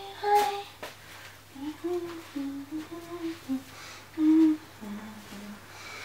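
A woman humming a slow tune: held notes stepping up and down in pitch, with a few brief rustles near the start.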